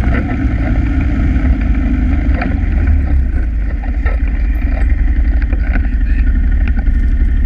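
ATV engine running steadily on a dirt trail, heard close up from a camera mounted on the machine, with a few light knocks along the way.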